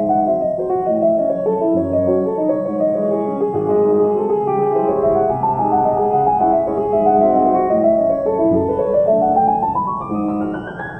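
Piano music playing busy, quick-moving figures of notes, with a fast rising run climbing high near the end.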